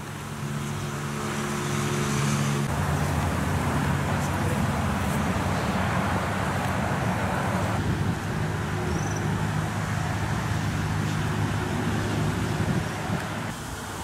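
Motor vehicle traffic: a steady low engine hum over road noise, growing louder over the first couple of seconds and dropping near the end.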